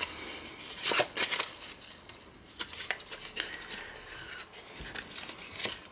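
Hands folding and creasing brown cardstock along its score lines: paper rustling and rubbing, with a few short crackles about a second in and again near the end.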